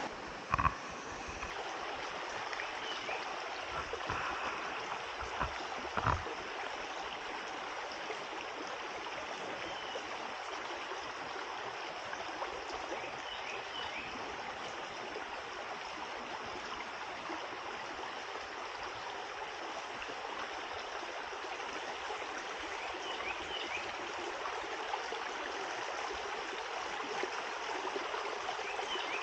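Shallow creek water running steadily over rocks. There are two soft knocks, about half a second in and about six seconds in, and a few faint high chirps now and then.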